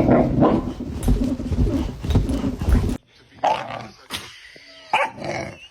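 A dog vocalizing in short separate bursts, over a busy, rumbling background in the first half that cuts off abruptly about three seconds in.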